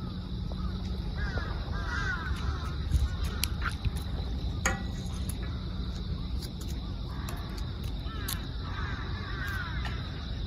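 Birds calling in clusters of short, repeated calls, once about two seconds in and again near the end, over a steady low rumble, with a few sharp clicks between.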